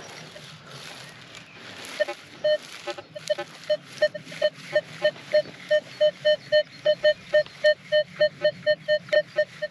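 Metal detector beeping: after some soft rustling, a rapid, even series of short electronic beeps starts about two seconds in, about three or four a second, and stops just before the end.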